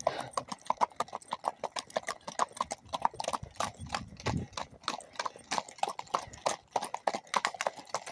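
Horses' hooves clip-clopping on a hard dirt road, a dense, uneven run of sharp hoofbeats.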